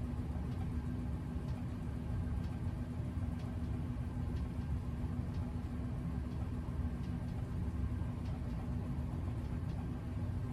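Vibration plate exercise machine running under a standing user: a steady low hum and rumble with one constant tone throughout.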